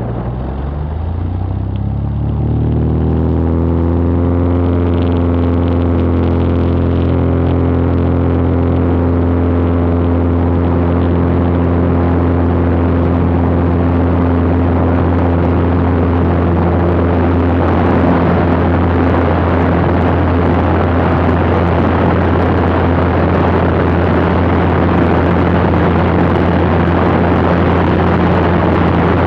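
Cessna Skylane's piston engine and propeller rising in pitch over the first few seconds to takeoff power, then running steadily at full power through the takeoff roll and climb-out. A broader rush of air noise grows about two-thirds of the way in.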